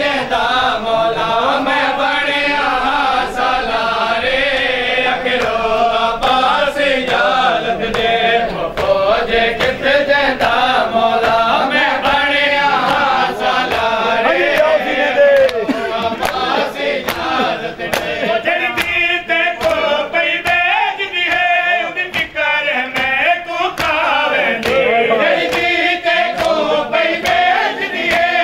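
A crowd of men chanting a mourning lament together, with the steady beat of open-handed chest-beating (matam) slapping under the voices.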